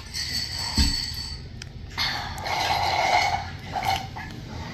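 Close-up eating at a table: noisy chewing and crunching with light clinks of dishes, a dull knock just under a second in, and a louder stretch of crunching from about two seconds in.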